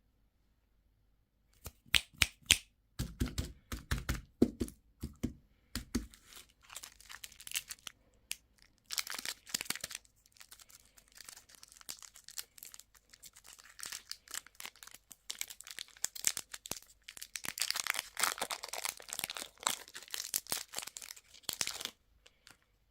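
Plastic candy packaging being opened by hand. A run of sharp plastic clicks and cracks comes first, then the wrapper crinkles and tears in spells until near the end.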